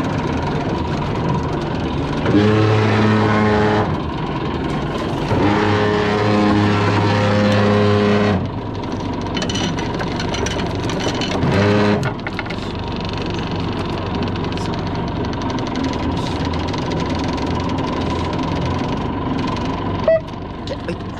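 Fishing boat's engine running under wind and sea noise, with two louder throttle bursts at a steady pitch, about two seconds in and again around five to eight seconds, as the captain holds the boat on the fishing spot.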